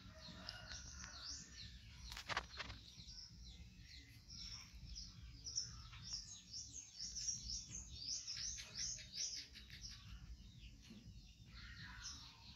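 Small birds chirping: many short, quick high chirps, thickest through the middle, with a single knock about two seconds in.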